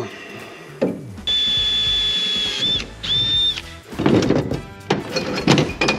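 Cordless drill drilling a rivet hole through aluminum tube framing. It gives a steady high whine for about a second and a half, then a short second burst.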